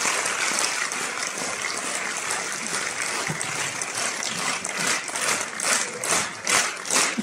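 Audience applauding, the clapping falling into a steady rhythm of about two to three claps a second near the end.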